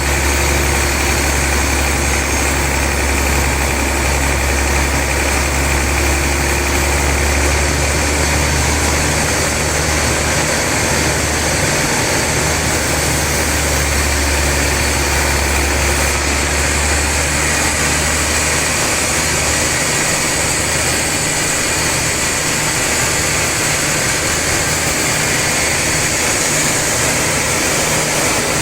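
Sawmill machinery running steadily while sawing a trembesi log: a loud machine hum with a hiss of noise over it. The low hum turns uneven about two-thirds of the way through.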